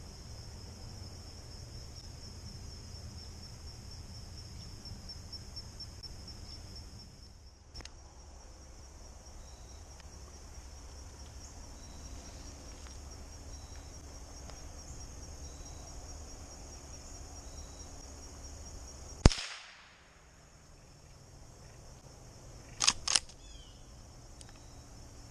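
Insects trilling steadily, then a single sharp crack of a Henry H001 lever-action .22 LR rifle shot about three-quarters of the way through, followed a few seconds later by a couple of quick clicks.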